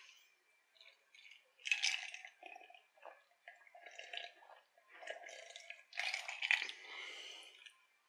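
Drinking from a glass, heard close up: a series of gulps and swallows a second or so apart, the longest and loudest near the end.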